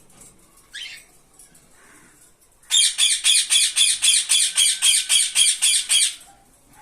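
Cockatiel screeching: one short rising call about a second in, then a fast run of harsh squawks, about five a second, lasting some three seconds.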